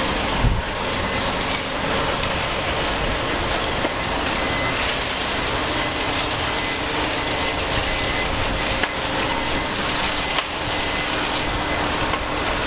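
Steady, loud running of heavy machinery in a precast concrete yard while wet concrete is spread in steel wall molds, with a faint on-and-off high whine over it.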